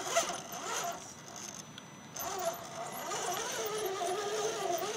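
Brushed 540-size electric motor and gear drivetrain of an Axial SCX10 RC rock crawler whining under load as it climbs rock; the whine comes in about two seconds in and wavers in pitch with the throttle. Short scrabbling clicks from the tyres and chassis on rock come earlier.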